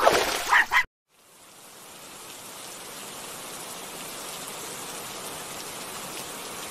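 A Pomeranian whimpers and yips briefly at the start, then the sound cuts off suddenly. After a short gap, a steady hiss of running water from a shallow stream fades in and holds.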